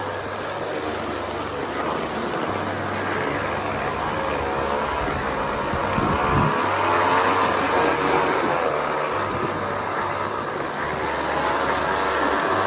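Metal rollers of a long roller slide rumbling and whirring as riders slide down over them, the whir wavering up and down in pitch with their speed and growing louder about halfway through.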